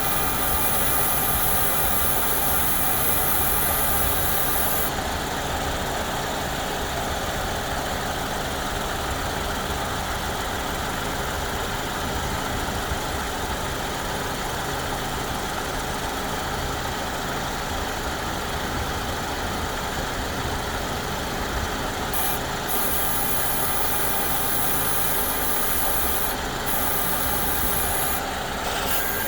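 2014 Ford Escape 1.6L engine idling with the AC on, and a high-pitched buzz from its clutched, externally controlled variable-displacement AC compressor. The buzz is heard for the first few seconds, drops out, and comes back about three-quarters of the way through with brief breaks. It comes only after the AC has built up pressure, and the owner does not know whether it is normal or a fault.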